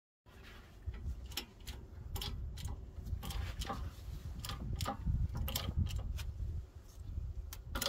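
Hand-pumped hydraulic shop press being worked to press a new rear hub seal into a wheel hub: irregular sharp metallic clicks, about two a second, over a low rumble.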